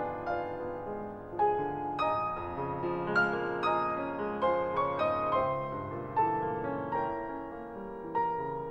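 Piano music laid over the footage: a slow melody of single struck notes, each ringing out and fading, over held lower chords.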